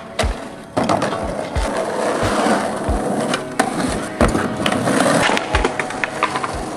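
Skateboard wheels rolling over concrete, with sharp clacks of the board as tricks are popped and landed. Short low thuds recur underneath.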